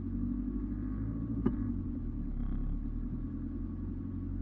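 Off-road 4x4's engine running steadily, with one sharp knock about one and a half seconds in.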